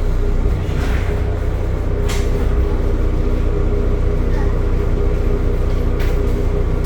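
Temsa Avenue LF 12 city bus's DAF diesel engine running steadily, heard on board as a continuous low drone, with a few short knocks or rattles from the bus body.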